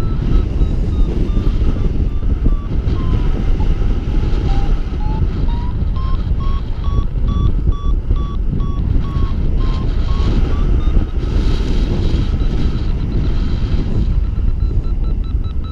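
Paraglider variometer beeping in a steady stream of short beeps whose pitch sinks a few seconds in and then rises again, marking weaker and then stronger lift. Heavy wind noise on the microphone from the airflow in flight lies under the beeps.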